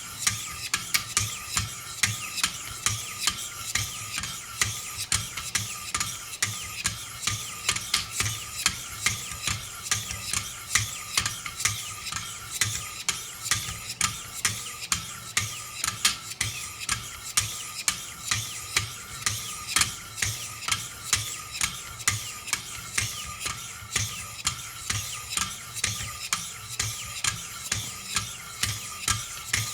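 Wicked Edge guided sharpening system's 600-grit stones rasping along a clamped knife blade in quick, regular strokes, about one to two a second.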